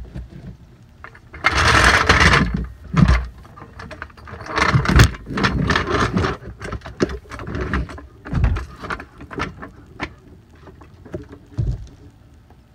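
Pittsburgh steel floor jack rolled over concrete, its wheels scraping, then a run of clanks and clicks as it is set under the rear suspension arm and raised.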